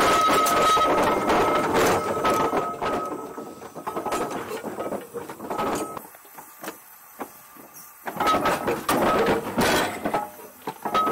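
Ransomes, Sims & Jefferies steam traction engine: a steady hiss of steam with a thin steady tone and scattered clanks and knocks. The hiss dies away about two seconds in, leaving only faint knocks for a couple of seconds mid-way, then comes back with more clanks near the end.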